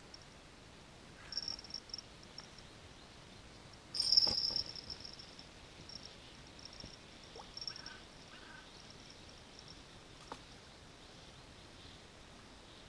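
Fishing reel being wound in, in short spells of high whirring and ticking, the loudest starting sharply about four seconds in, with a few light clicks later on.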